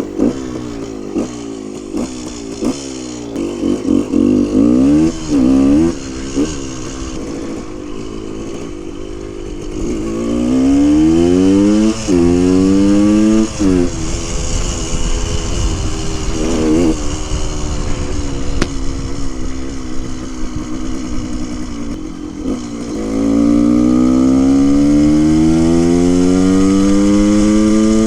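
The two-stroke single-cylinder engine of a 1974 Honda MT250 Elsinore under way, revving up repeatedly and dropping in pitch at each gear shift. It holds a long rising pull near the end.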